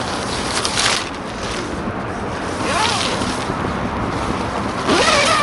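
A tent door's zipper being pulled and its nylon fabric handled, over a steady background hiss. Background voices come in, loudest near the end.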